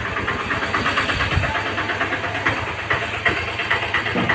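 An engine or motor running steadily, with a fast, even pulse.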